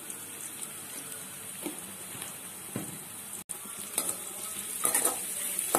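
Sliced onions and spice powders sizzling steadily in hot oil in an aluminium kadai, with a few short clicks of a steel slotted spoon against the pan as they are stirred.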